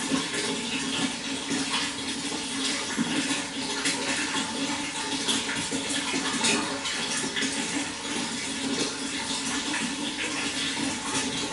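Running water: a steady, continuous rush and splash with no breaks.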